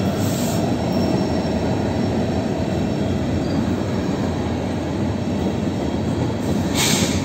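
Freight train gondola cars rolling past, a steady rumble of steel wheels on rail, with a brief hiss near the end.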